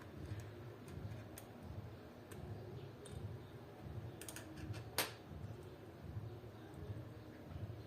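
Scattered light clicks and taps of small repair tools on an iPhone 12 Pro during a screen replacement, with one sharper click about five seconds in, over a low rumble.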